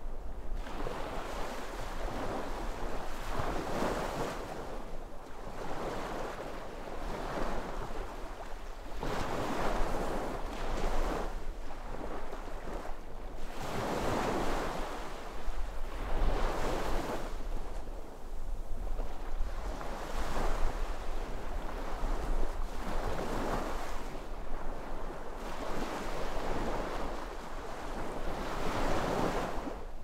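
Sea waves breaking and washing up the shore, a new surge swelling and fading every few seconds, over a steady low rumble.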